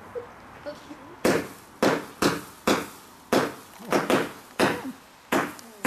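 Multi-shot firework cake firing shot after shot, a sharp bang about every half second, starting about a second in.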